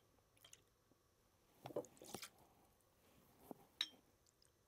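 Faint trickle of gin being poured from the bottle into a metal jigger, mostly near silence, with a couple of small clicks near the end.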